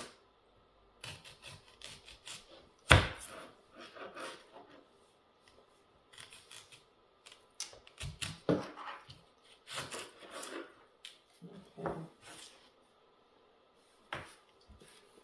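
Knife cutting onions into thirds: a few irregular knocks of the blade going through, with handling and rustling between. The sharpest knock comes about three seconds in.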